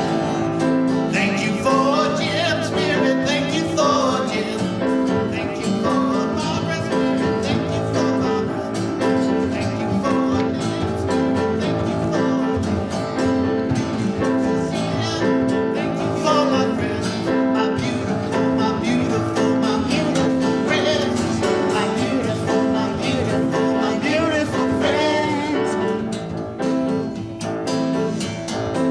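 Live band playing a song: grand piano, strummed acoustic guitar and a djembe hand drum, with several voices singing.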